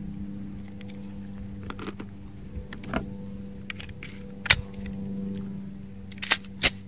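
Metallic clicks of 9mm cartridges being pressed one by one into a Glock magazine, then two sharp clacks close together near the end as the magazine is seated in a Glock 19 Gen 2 pistol and the slide is worked. A steady low hum runs underneath.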